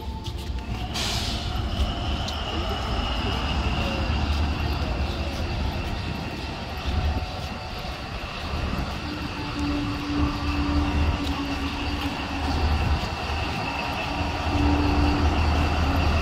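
Diesel locomotive idling close by: a steady low rumble with a thin high whine over it. There is a short hiss about a second in, and a steady mid-pitched hum sounds twice in the second half.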